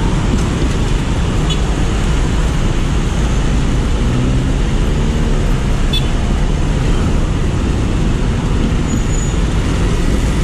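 Traffic at close range: many motorcycle and car engines running together in a steady, dense rumble. One engine's pitched hum stands out briefly about four seconds in.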